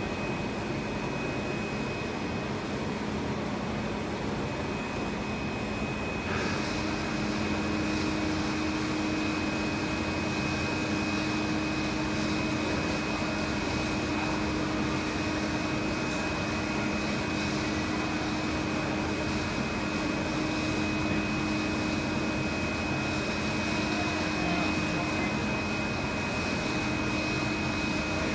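Yotta UV flatbed printer running while it prints: a steady whirring hum with a constant high whine. About six seconds in, a lower tone joins and the sound grows slightly louder.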